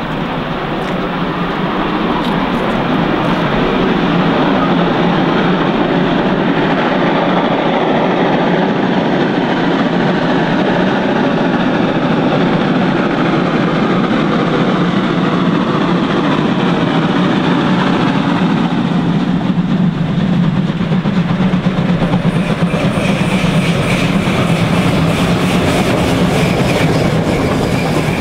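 Two German steam locomotives, a class 52 and a class 95, running side by side with their trains, growing louder as they approach. The pitch falls as they come close. Near the end the coaches roll past with a rhythmic clickety-clack.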